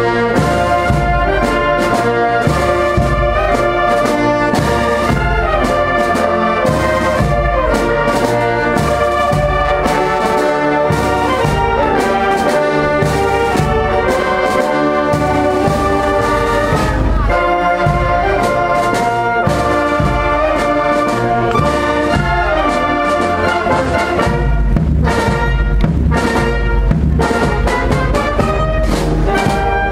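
Wind band playing a piece together: clarinets, flutes and saxophones over trumpets, euphoniums and sousaphone, with a steady beat in the bass.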